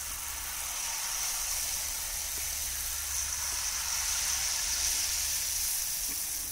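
Jalebi batter frying in hot oil in a kadhai: a steady sizzle.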